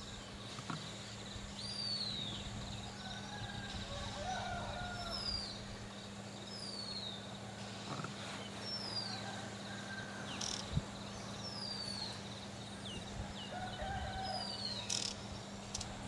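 Birds calling at dawn: one repeats a short, high, falling whistle every second or two, while others add lower chirps and warbles.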